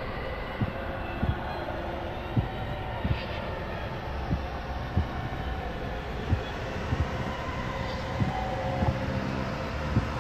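Steady low rumble with soft, uneven thumps a little under one a second: footsteps and handling of a camera carried at a walk through the hallways.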